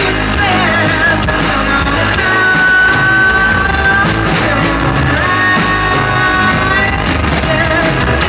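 Live rock band playing loudly: electric guitar, bass and drum kit with cymbal hits, with long held notes about two seconds in and again after five seconds.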